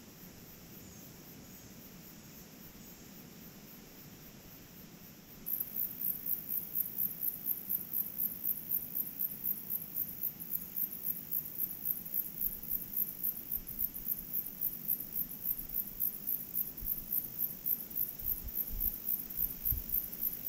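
Insects calling: a high-pitched pulsing trill, about three or four pulses a second, that becomes much louder about five seconds in. Faint bird chirps in the first few seconds and a few low thumps near the end.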